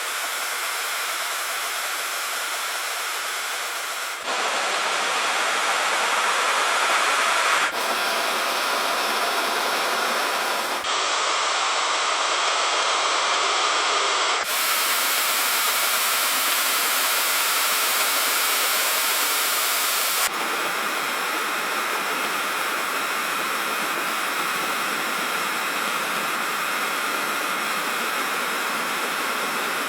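River stream water rushing steadily, heard as several spliced takes whose tone and loudness change abruptly every few seconds.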